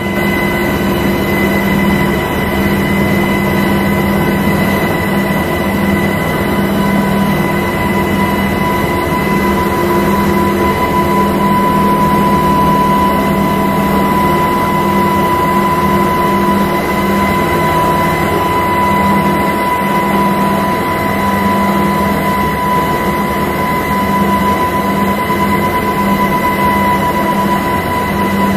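Steady cabin noise from a helicopter in flight: a constant engine and rotor drone with an even whine on top, holding level throughout.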